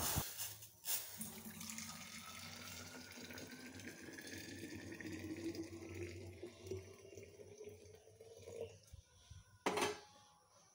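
Hot water poured in a thin stream into a vacuum flask, the pitch of the filling rising steadily as the flask fills up. A short knock follows near the end.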